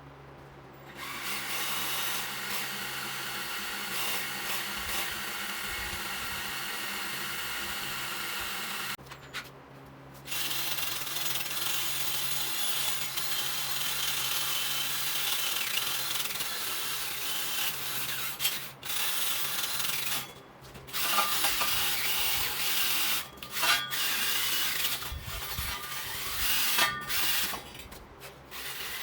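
A power tool running in long stretches, with a few short stops in between.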